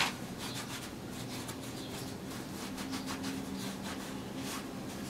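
A petrol-soaked cloth rag rubbing and scrubbing over a gearbox casing in short, irregular wiping strokes, degreasing it before painting. A faint steady hum lies underneath.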